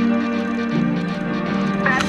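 Rock music: held guitar chords that change twice.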